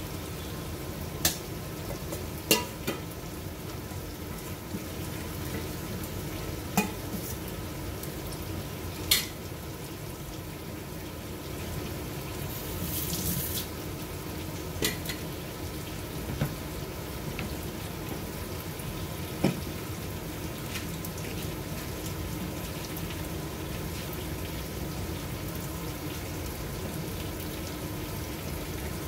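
Thick curry frying in a stainless steel pot: a steady sizzle, with a handful of sharp pops spread through it and a brief louder hiss about halfway through.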